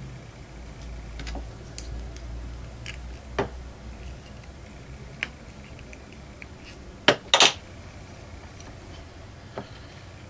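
Small metal clicks and ticks from needle-nose pliers bending a thin wire into a loop, with a sharp pair of clicks about seven seconds in.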